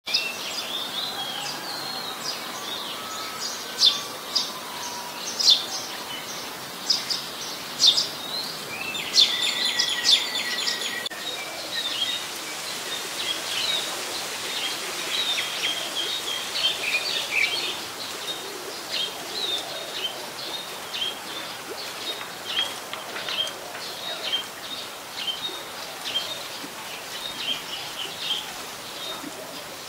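Eurasian tree sparrows chirping: many short, high chirps, with a dense run of calls about nine to eleven seconds in and steady chirping after that.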